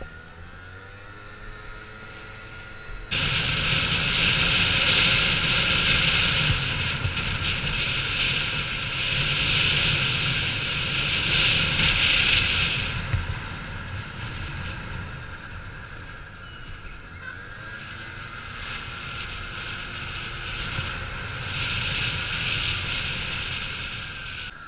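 Motor scooter's small engine running as it is ridden, its pitch rising in the first few seconds, under heavy wind rush on the helmet-mounted camera. The wind noise comes in suddenly and loud about three seconds in, eases off about halfway, and swells again near the end.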